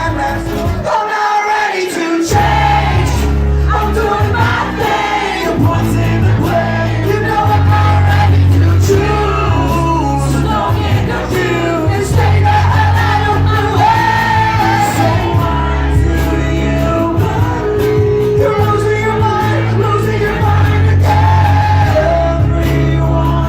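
Live band music with singing, loud and continuous, with long held bass notes that change every couple of seconds under the vocal line.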